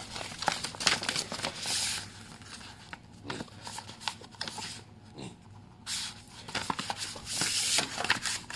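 Pages of a paper instruction manual being turned and handled, rustling in several short spells with small clicks of paper, the longest spell near the end.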